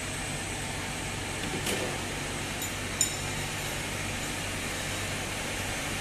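Steady hum of powder-coating plant machinery running, with one sharp click about three seconds in.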